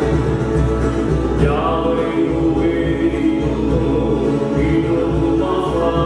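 A group of voices singing a slow Tahitian song together in harmony, with held notes, accompanying a mehura dance.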